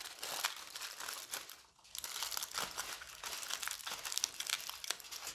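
Aluminium foil crinkling and crackling as a strip is wrapped and squeezed by hand around a small foil figure's leg, with a short pause a little under two seconds in.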